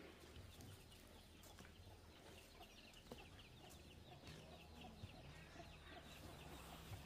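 Near silence with faint chickens clucking and chirping in rapid short calls, over a low steady hum.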